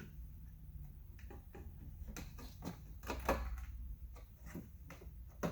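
Scattered small plastic clicks and light knocks of hands working a car side mirror's wiring plug and housing parts, with a few louder ones about two, three and five seconds in.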